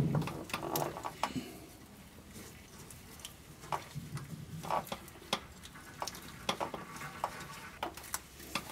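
Small metal parts clicking and ticking as a cotter pin is worked through the clevis pin joining an air brake chamber's pushrod to the slack adjuster. There is a dull knock right at the start, then irregular light clicks.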